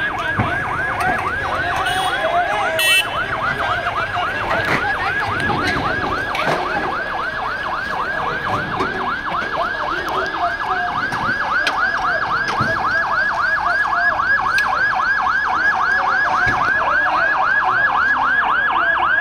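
Fire engine's electronic siren on a fast yelp: a rising wail repeating about four times a second, growing a little louder in the second half and cutting off at the end.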